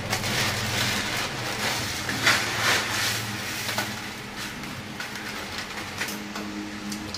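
Dry Maggi instant noodles crushed inside their plastic packet, the wrapper crinkling, then the broken noodles rattling out onto a steel plate. The crackling is densest in the first half and thins out toward the end, over a low steady hum.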